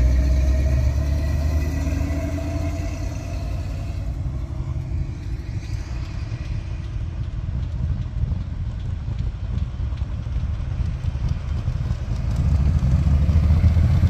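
Low engine rumble of a big pickup truck driving past and away, fading over the first few seconds. Near the end the engine of another approaching car grows louder.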